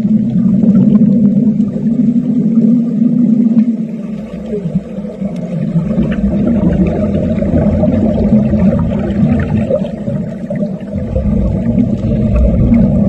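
Underwater sound of wet arc welding: a steady low hum and rumble with faint scattered crackles. It dips briefly about four seconds in.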